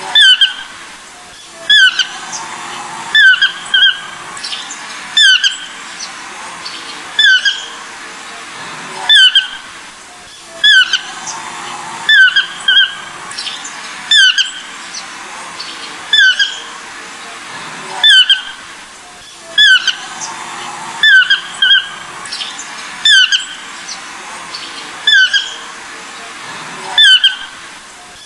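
A bird giving short, loud calls over and over, singly or in quick pairs about every one to two seconds, over a steady background hiss.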